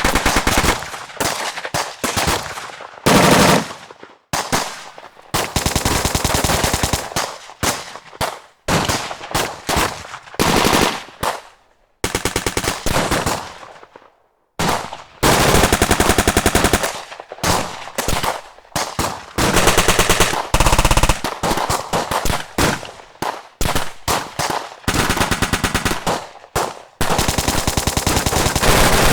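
Automatic gunfire: bursts of rapid machine-gun fire, some long and some short, mixed with single heavier shots, with a brief pause about halfway through.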